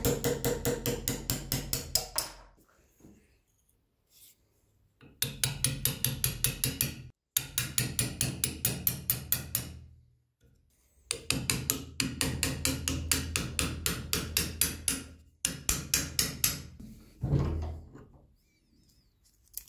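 A hammer tapping a steel punch against a pin through the metal ferrule of a wooden tool handle, setting the pin. The taps come quickly, about five or six a second, in runs of a few seconds with short pauses between.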